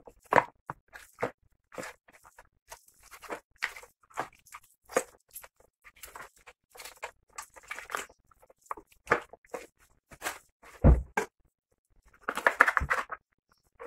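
Knife cutting through raw chicken wings on a cutting board: scattered clicks, crunches and tearing, with a few heavier knocks of the blade on the board about nine to eleven seconds in.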